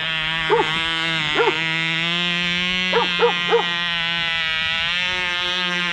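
Cox model helicopter's small glow-fuel engine running steadily at a high whine, while a dog barks over it: twice in the first second and a half, then three quick barks a little after halfway.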